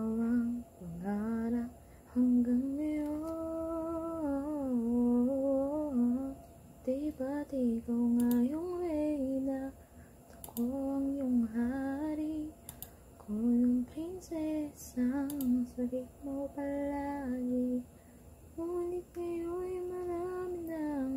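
A woman humming a tune to herself with no accompaniment: phrases of held, gliding notes with short breaks between them.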